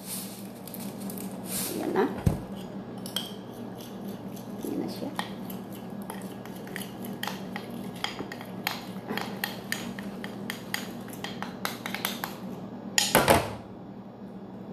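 A spoon stirring tahini sauce in a bowl, with fast, uneven clinks and scrapes against its side. A louder clatter comes about a second before the end.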